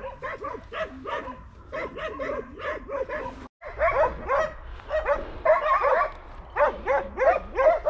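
Several hunting dogs barking rapidly, their barks overlapping, as they bay at a wild boar held in thick cover. The sound breaks off briefly about three and a half seconds in.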